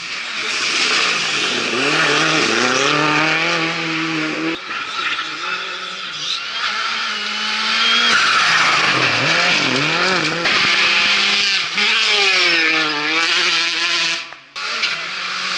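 Rally cars driven flat out on loose stage roads: engines revving up and falling back through gear changes over a loud hiss of tyres spraying gravel. Several passes cut together, the sound breaking abruptly twice.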